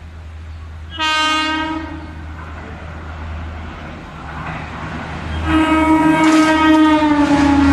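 Indian Railways WAP-1 electric locomotive sounding its horn as the Humsafar Express comes through: one blast of about a second, then a longer, louder blast whose pitch drops slightly as the train passes, over the steady rumble of the approaching train.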